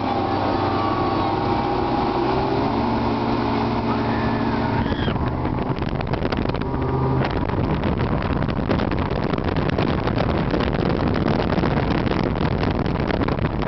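Evinrude 225 two-stroke outboard running at speed, pushing the bass boat along with a steady engine tone. After about five seconds the engine tone is buried under a loud, rough rush of wind and water.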